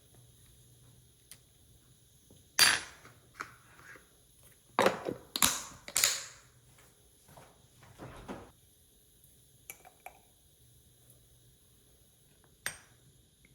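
Scattered sharp knocks and clatter of hard objects being handled: one loud knock about three seconds in, a quick cluster of clattering a couple of seconds later, then a few lighter taps and a final knock near the end.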